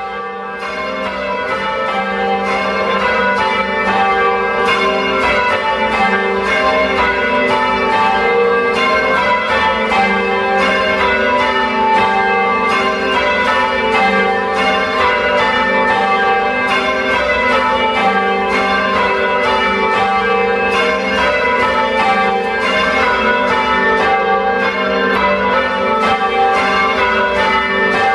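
A ring of four Taylor church bells, cast in 1922 with the tenor in G, rung full-circle in change ringing: an even, unbroken succession of strikes, each bell ringing on under the next. The sound swells up over the first few seconds, then holds steady.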